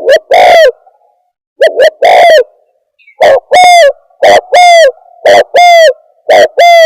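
Spotted dove (tekukur) cooing loudly: repeated two-part coos, a short note then a longer one, coming about once a second. It is a recorded lure call used to draw in spotted doves.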